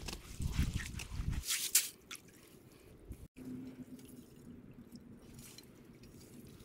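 Slush and broken ice sloshing and scraping in a freshly drilled ice-fishing hole as it is cleared out, by hand and with a metal ice skimmer. It is loudest in the first second and a half and fainter after that.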